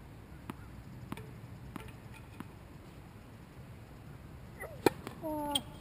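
Tennis ball bounced on a hard court four times, about every 0.6 s, as a pre-serve routine, then a sharp racket strike on the serve about five seconds in, the loudest sound. Brief high squeaks come just before and after the hit.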